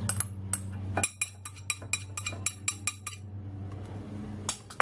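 A spoon clinking against a bowl: a quick run of ringing taps, about five a second, as spice is knocked into the dry ingredients, with a few more clinks near the end.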